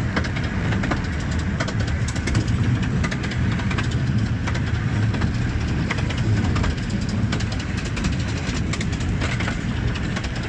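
Steady rumble of a 15-inch-gauge Romney, Hythe and Dymchurch Railway train heard from on board as it runs along the line, with a constant rattle of quick, irregular clicks from the wheels and carriage.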